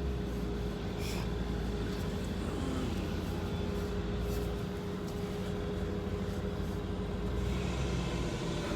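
A truck's engine running steadily, heard from inside the cab as it maneuvers slowly: a steady low rumble with a constant hum.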